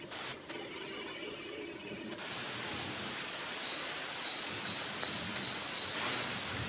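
Tropical rainforest ambience: a steady hiss of the forest, with a short high note repeated about three times a second from about two seconds in, a call from an unseen bird or insect.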